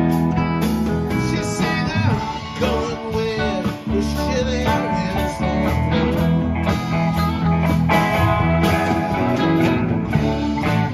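Live rock band playing a song: electric guitars over bass, keyboard and drums.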